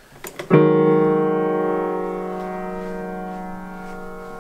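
Grand piano: a couple of quick knocks, then a loud chord struck hard about half a second in that rings on and slowly fades.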